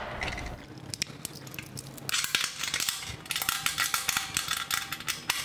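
Stainless steel fittings clinking and rattling as a ball valve is handled and fitted onto a fermenter's port: a few light clicks at first, then a busier run of metallic clinks from about two seconds in.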